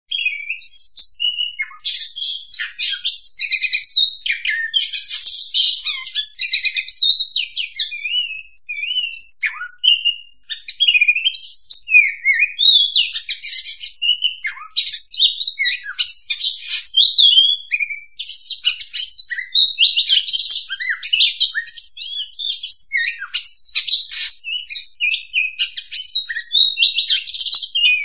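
Oriental magpie-robin singing a long, varied song of rapid whistles, chirps and harsher notes with hardly a break, pausing briefly about ten seconds in.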